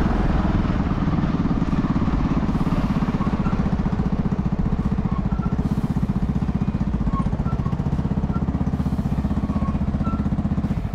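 Honda Cub 50's small four-stroke single-cylinder engine running, a steady rapid putter as the moped rolls slowly across the forecourt. The engine cuts off at the very end.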